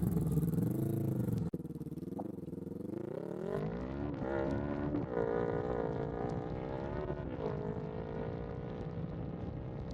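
Honda CBR sportsbike engine under way, its pitch rising and falling again and again as the throttle opens and closes, with an abrupt break in the sound about a second and a half in.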